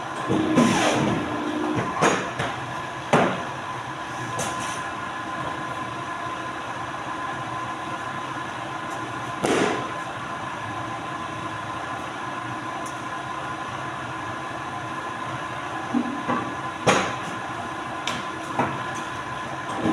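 Polar 115 paper guillotine cutter running with a steady machine hum, with a few sharp knocks and thuds as stacks of paper are handled and cut on its table.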